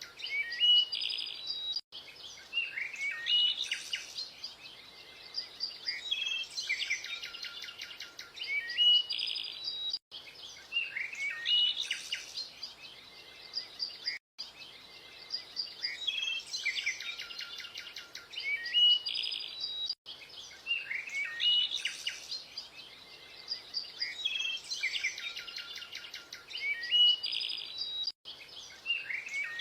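Several birds chirping and calling, with quick high chirps and short trills. The same few seconds of birdsong repeat about every eight seconds, with brief dropouts where the loop joins.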